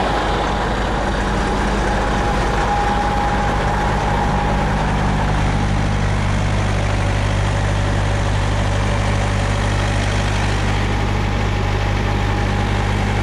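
Semi truck's diesel engine idling steadily, a low hum that grows a little stronger about five seconds in.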